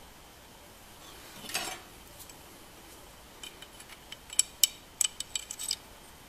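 A brief scrape about a second and a half in, then a quick run of small metallic clicks and clinks, the sharpest in the middle of the run, as a carbide scraper blade is seated in the steel head of a push scraper.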